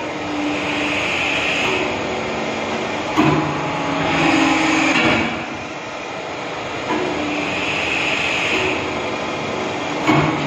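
150-ton deep-draw hydraulic press cycling empty, with no workpiece: the hydraulic pump's whine comes and goes as the ram travels down and back up. A sharp clunk about three seconds in and again near the end.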